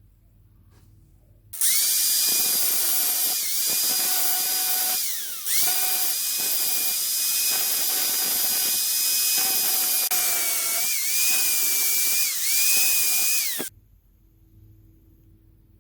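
Electric drill running with a high whine. It starts about a second and a half in, winds down and restarts about four seconds later, wavers slightly in pitch as it works, and cuts off shortly before the end.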